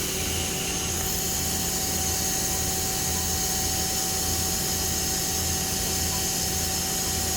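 Tsugami B0326-III CNC automatic lathe with its Z axis (the spindle headstock sliding in and out) being jogged: a thin, steady servo whine starts just after the start and holds, over the machine's steady hum.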